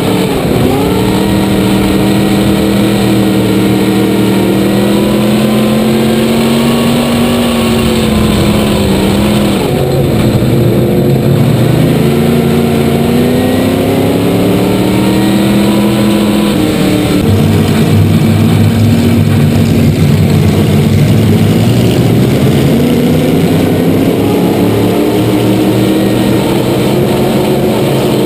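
Dirt track race car's V8 engine at racing speed, heard from inside the cockpit, its pitch dropping as the driver lifts off for the turns and climbing again down the straights, several times over.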